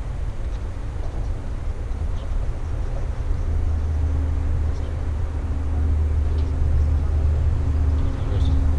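A steady, low engine rumble with a faint hum above it, growing louder about four seconds in.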